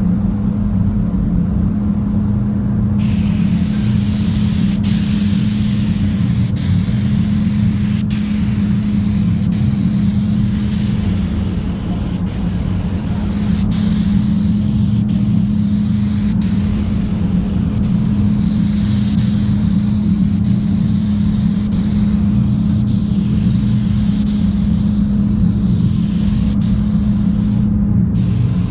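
Compressed-air paint spray gun hissing in repeated passes, starting about three seconds in and cutting out briefly about every second and a half, over a steady low hum.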